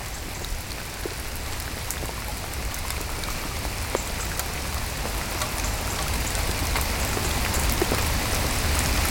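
Heavy rain: a dense hiss full of sharp drop ticks, heard over a low rumble and rattling on a plastic bag covering the camera. It grows gradually louder.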